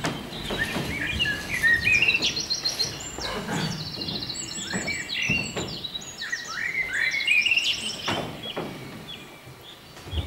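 Recorded birdsong played as a stage sound effect: a run of chirps, rapid trills and rising whistled phrases. A few dull thuds sound under it.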